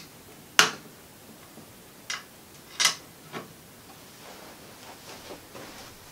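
A handful of sharp clicks and light knocks from wire leads and terminal hardware being handled at an antique battery radio. The loudest click comes about half a second in, with others over the next few seconds and fainter handling noises near the end.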